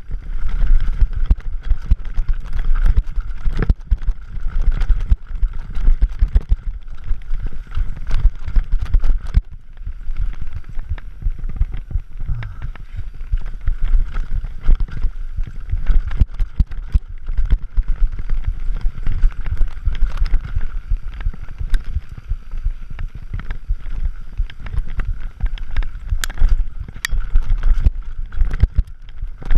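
Scott Gambler 720 downhill mountain bike rattling and clattering over a rough dirt and rock trail at speed, with a constant low rumble from the tyres and from wind on the microphone.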